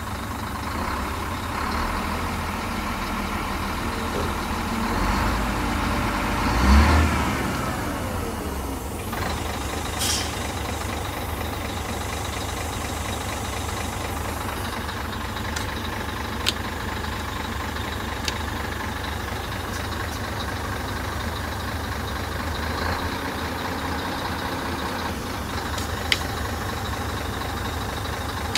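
Scania dump truck's straight-six diesel engine running, heard from inside the cab. It revs up about five seconds in and drops back a couple of seconds later. A few short sharp clicks come later on.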